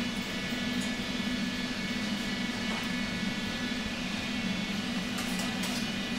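Steady low drone of a commercial kitchen's ventilation running, with an even hiss above it.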